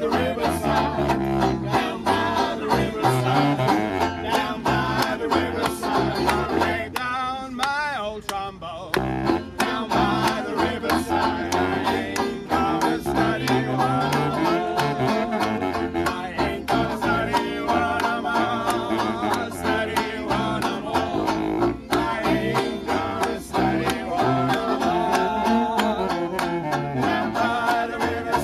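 Small acoustic New Orleans-style trad jazz band playing: banjo strumming a steady rhythm under saxophones, clarinet and trombone. About seven seconds in the low parts drop out for a second or two, leaving a wavering horn line on its own.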